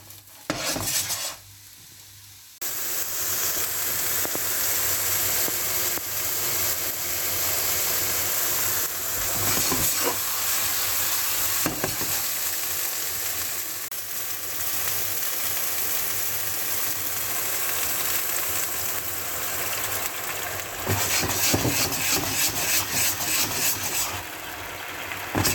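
Marzuelo mushroom pieces sizzling in a very hot non-stick wok, tossed briefly at first. About two and a half seconds in, cockle broth with cava goes into the pan and a loud, steady sizzle starts suddenly as the liquid boils off. Near the end, quick stirring strokes sound in the pan over the sizzle.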